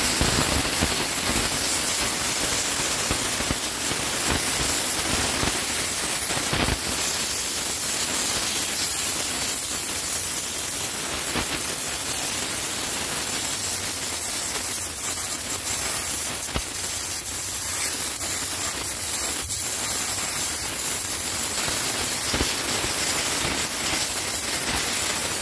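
Optima Steamer steam cleaner wand jetting pressurised steam, a steady hiss.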